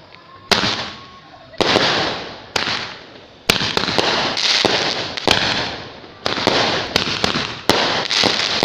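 Fireworks bursting one after another, each sharp bang followed by a fading hiss and crackle. At first they come about a second apart, then thick and fast from about four seconds in.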